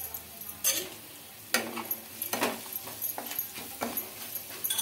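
Onions, curry leaves and pounded garlic-chilli paste sizzling in hot oil in a small metal kadai, with a metal spatula scraping and stirring against the pan in several sharp strokes.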